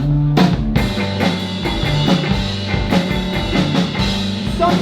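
Rock band playing with drum kit, bass and electric guitar. The fuller band sound comes in under a second in.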